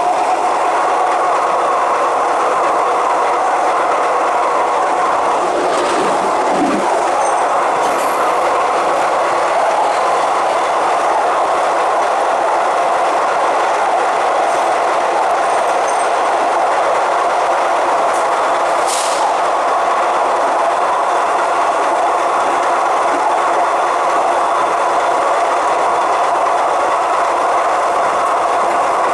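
Electric suburban commuter train running at a steady speed: an even rail rumble with a steady motor whine, and a brief high hiss about two-thirds of the way through.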